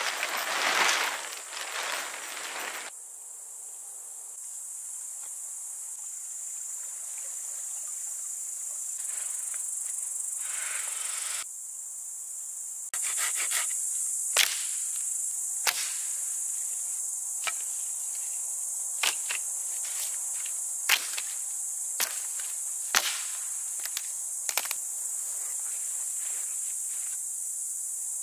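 Crickets chirring in a steady high drone throughout. Near the start, the rustle and flap of tent fabric being shaken out; from about halfway on, a string of sharp, irregular cracks of dry branches.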